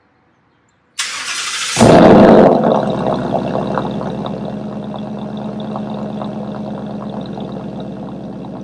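2019 Ford Mustang GT's 5.0 L Coyote V8 with a Borla ATAK cat-back exhaust starting up. The starter cranks about a second in, the engine catches with a loud flare, then it settles into a steady burbling idle that slowly quiets.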